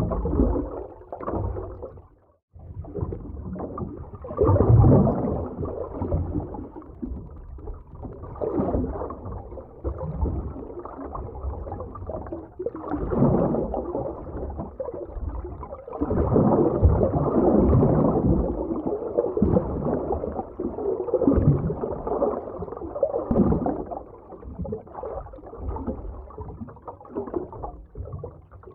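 Underwater ocean ambience: muffled, low rushing and gurgling of moving water that swells and fades in surges, with a brief drop-out about two seconds in.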